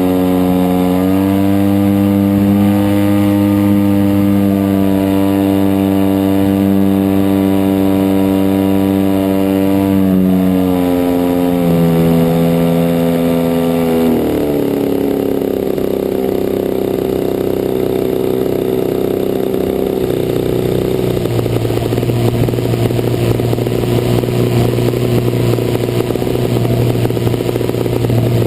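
DLE 55cc single-cylinder two-stroke petrol engine of a large RC model plane running steadily at high throttle, then dropping to a lower, rougher note about halfway through as the throttle is pulled back.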